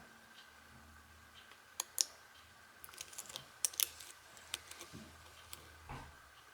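Faint, irregular metallic clicks and ticks of a lock pick working the pin stacks of a Union padlock held under tension, with a small cluster in the middle: single-pin picking a lock with security pins.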